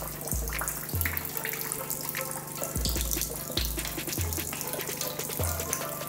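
A thin stream of water pattering and splashing onto a wet tiled floor, over a steady low hum and deep bass notes that start and stop every half second or so.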